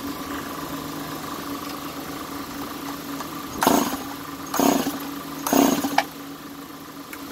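Stihl MS 290 two-stroke chainsaw running at idle, revved briefly three times about a second apart beginning midway.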